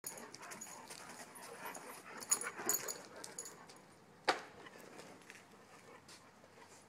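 A dog moving about close by, with a run of small clicks and scuffs between about two and three and a half seconds in and one short, sharp sound just after four seconds.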